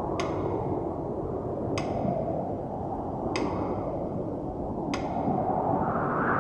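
Steady rumble of a moving vehicle heard from inside, with a sharp, ringing ping repeating at an even pace about every one and a half seconds.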